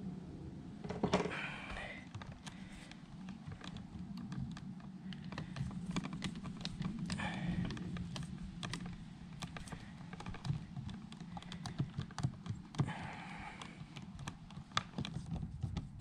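Irregular light clicks and taps of hand tools and stiff copper wire being handled at an electrical outlet, a screwdriver working the outlet's terminal screws, with a few brief scraping sounds in between.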